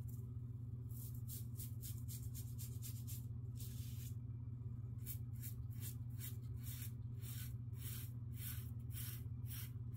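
Blackland Osprey safety razor scraping through lathered stubble on the neck across the grain: a string of short scraping strokes, several a second at times, over a steady low hum.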